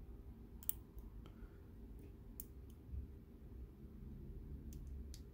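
Faint, scattered clicks of a pick working the pin-in-pin stacks of a Mul-T-Lock Junior cylinder held under tension by a tension bar. About half a dozen sharp ticks; the clearest comes about two-thirds of a second in, and a few more come close together near the end.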